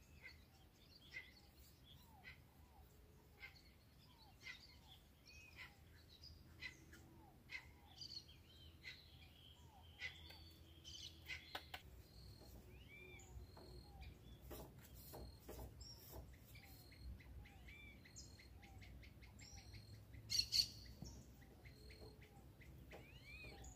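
Faint birdsong: short arching chirps repeated about once a second, with a few clicks around the middle and a brief louder burst of calls near the end.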